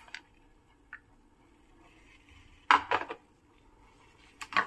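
A spoon scraping and knocking against a steel plate as the dry-fruit mix is scraped off it: a short clatter of several knocks about three seconds in, and a couple of sharp knocks near the end.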